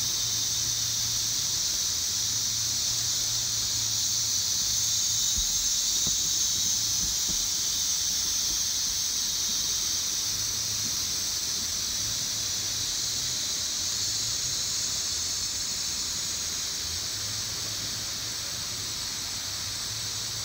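Rainforest ambience: a steady, high-pitched drone of insects over the continuous rush of a waterfall.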